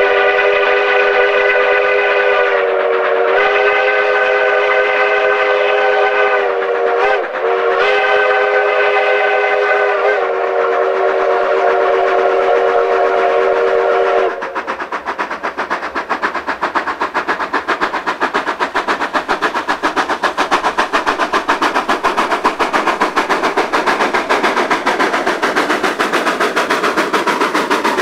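Steam whistle of the narrow-gauge D&RGW K-36 2-8-2 #482, blowing long chime blasts with short breaks, the signal for a grade crossing; it stops about halfway through. Then the locomotive's exhaust chuffs in a fast, even beat, growing louder as it comes closer.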